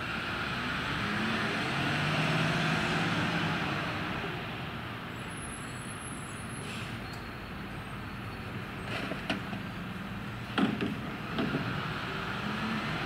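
Freightliner Heil rear-loader recycling truck's engine running as the truck creeps forward, louder for the first few seconds. Near the end come a few sharp clattering knocks as recyclables are tipped into the rear hopper.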